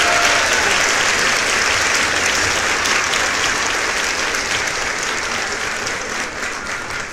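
A crowd applauding: dense, steady clapping that slowly fades over the last few seconds.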